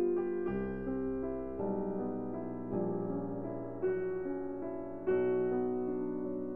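Slow background piano music, with notes and chords struck and held, changing about once a second.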